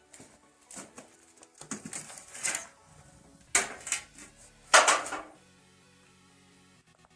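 A metal trowel scraping and clinking against cement mortar and its pan in a series of short, uneven strokes, the loudest about five seconds in. Faint background music plays underneath.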